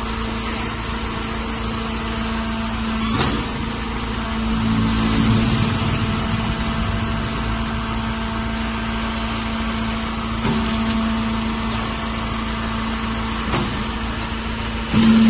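Silage press baler running with a steady mechanical hum, working harder for a couple of seconds about a quarter of the way in, with a few sharp knocks and a sudden louder burst of machine noise at the very end.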